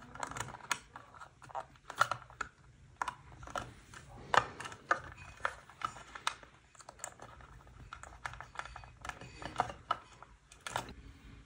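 Irregular small clicks and taps of hands working wiring: a switch and wire connectors being handled and pushed into the plastic switch box of an electric vacuum pump.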